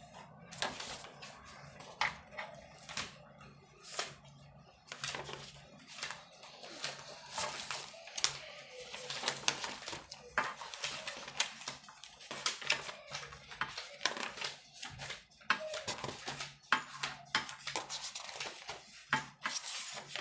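A thick stack of paper documents being leafed through: sheets rustling and flapping as pages are turned and lifted, with many irregular sharp taps and clicks of paper and hands against the tabletop.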